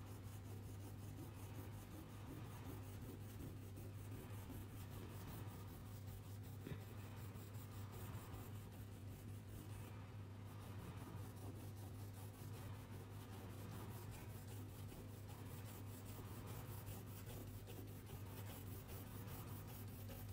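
Faint scratchy strokes of colouring back and forth on paper, over a steady low hum.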